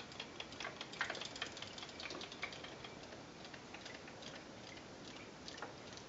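Faint, irregular ticking and clicking from Zuru Robo Fish battery-powered robotic toy fish swimming in a sink of water.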